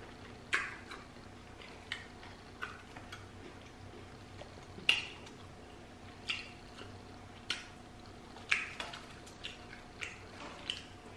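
Hands pulling apart a grilled chicken club sandwich: scattered short clicks and crinkles, about a dozen, from the bun, lettuce and chicken being lifted off a foil-lined tray.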